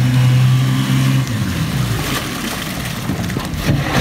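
Small outboard motor on a canoe running at a steady pitch, dropping away a little over a second in, after which the splash of water against the hull carries on with a few light knocks near the end as the canoe comes in to the bank.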